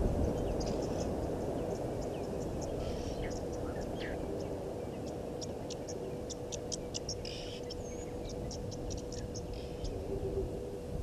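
Outdoor waterhole ambience: a steady low rumble with a faint continuous hum, overlaid with many short, high chirps and ticks from small wild animals, busiest in the second half.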